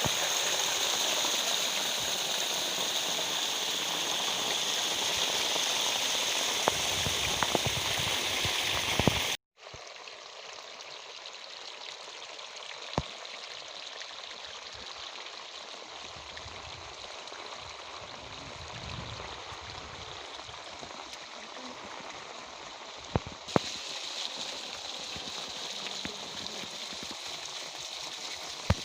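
Small rain-fed waterfall rushing, a steady even rush of falling water. About nine seconds in it cuts out for a moment and returns quieter.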